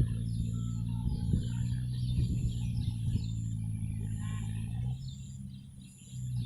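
Small birds chirping and twittering over a steady low hum, which fades out about five seconds in and comes back near the end.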